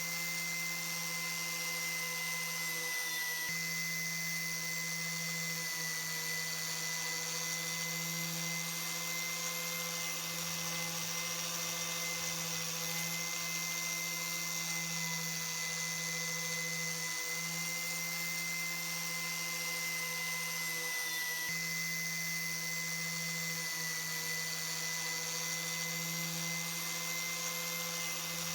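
Small electric power tool running at a steady speed, its motor giving a constant high whine over a hiss, as used for rust removal and polishing of typewriter parts.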